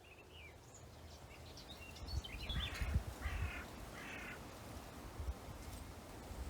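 Three harsh bird caws in a row, about two and a half to four seconds in, after fainter chirping bird calls, with a low rumble underneath.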